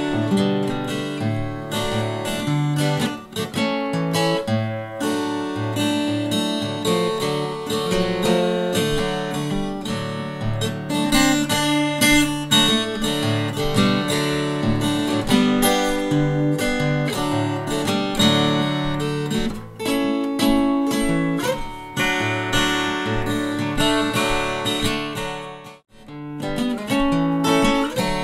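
Background music: acoustic guitar playing plucked and strummed notes, with a brief break near the end.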